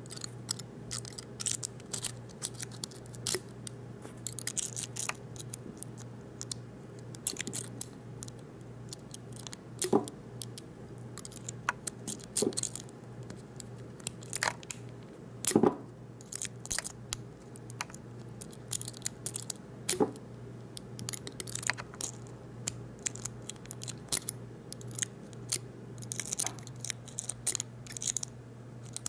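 Lock-pick rake being jiggled and scrubbed in the keyway of a Master Lock padlock: irregular small metallic clicks and scrapes as the pins rattle, with a few louder clicks now and then, over a steady low hum.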